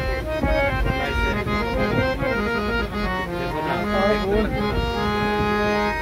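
Indian harmonium, a hand-pumped reed organ, playing a melody in held reed notes that change every half-second or so.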